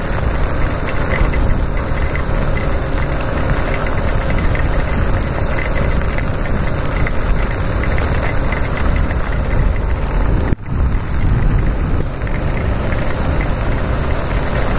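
Yamaha XTZ 250 single-cylinder motorcycle engine running steadily at cruising speed, mixed with the rushing noise of riding a wet road in rain. The sound drops out for a split second about ten and a half seconds in.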